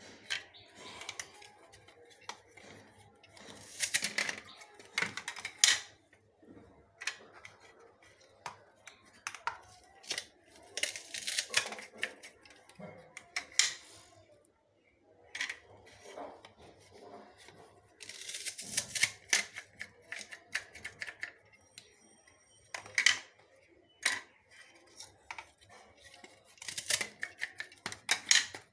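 Onions being cut by hand against a curved metal blade: irregular crisp cutting clicks and short scraping rasps, several bursts with pauses between them.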